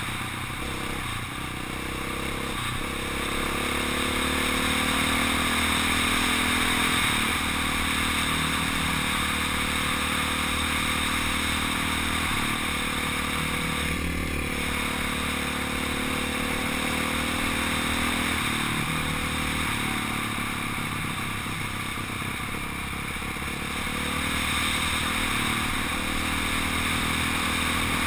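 Honda 450 dirt bike's single-cylinder four-stroke engine running at speed, its pitch rising and falling with throttle and gear changes, over a steady rush of wind on a helmet-mounted microphone.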